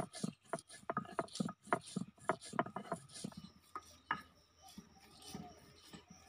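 Stone muller rubbed back and forth on a flat stone grinding slab (sil-batta), grinding dry spices: rhythmic gritty scraping strokes, about three a second, turning softer after about four seconds.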